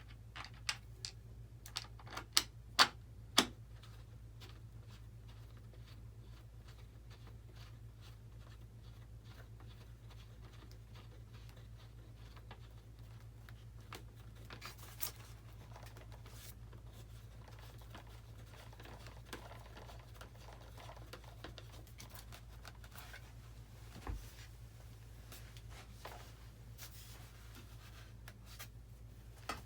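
Hands handling small parts and wiring of an RC model airplane: a quick run of sharp clicks in the first few seconds, then scattered light taps and rustles. A steady low hum runs underneath.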